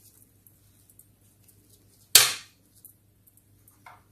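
One loud, sharp plastic snap about two seconds in, as a figure is pressed into place in a plastic toy carriage. A couple of faint plastic taps follow near the end.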